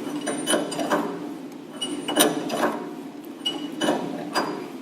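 Two open-end wrenches clinking against a hose nut and its fitting as the nut is loosened while the fitting is held: a series of irregular short metal clicks with a light ring.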